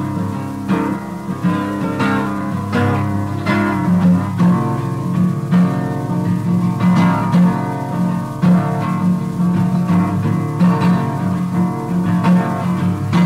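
Acoustic guitar music: fingerpicked notes ringing over a repeating low note.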